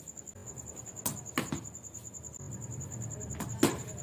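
A steady, high-pitched pulsing trill of a chirping insect, with a few sharp knocks, the loudest about three and a half seconds in.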